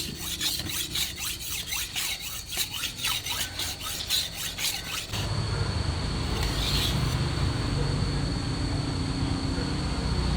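Quick, even back-and-forth scraping strokes of a steel blade, about four a second, as in sharpening or filing a knife. About five seconds in the strokes stop abruptly and a steady running noise with a high whine and a low hum takes over.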